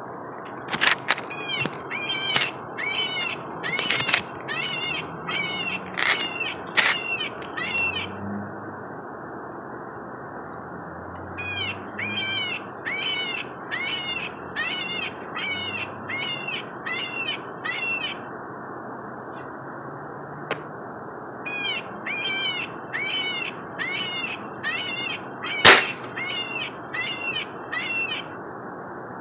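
Squirrel giving repeated alarm barks, about two calls a second, in three bouts separated by pauses of a few seconds. There are a few sharp clicks in the first seven seconds and one loud sharp crack near the end.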